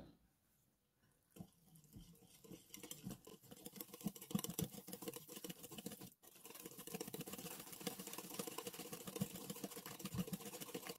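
Wire whisk beating cake mix and eggs into a batter in a glass bowl: a fast, faint patter of small clicks and wet taps, starting about two seconds in, with a brief break near the middle.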